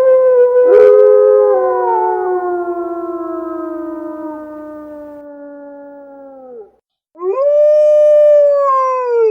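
Eastern wolf howling: one long howl slides slowly down in pitch and fades out, with a second, lower voice overlapping it early on. After a brief silence, a shorter howl rises, holds and falls away. A sharp click sounds about a second in.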